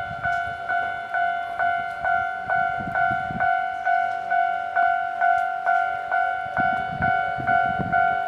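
Railway level crossing warning bell ringing in a steady, even rhythm of about two and a half dings a second. Low rumbles come and go underneath, about three seconds in and again near the end.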